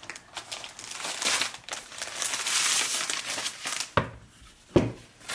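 Packaging crinkling and rustling as a keyboard is taken out of its box, followed by two sharp knocks near the end.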